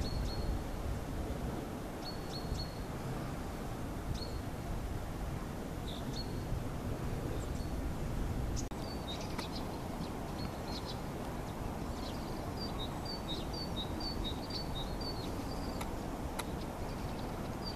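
Small birds chirping with short high notes, a few scattered at first and then a quick run of them about two-thirds of the way through, over a steady low outdoor rumble.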